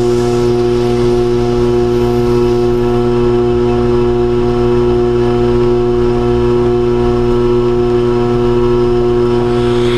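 Electric potter's wheel running at a steady speed, its motor giving a loud, constant hum with several overtones.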